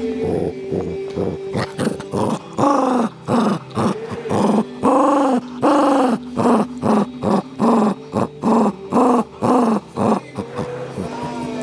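West Highland white terrier making a quick run of short growly vocalizations, each rising and falling in pitch, about two a second.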